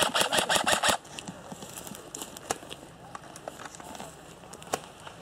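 An airsoft electric rifle firing a short full-auto burst of about eight shots in a second, followed by footsteps crunching and twigs crackling on the forest floor, with a few single sharp snaps.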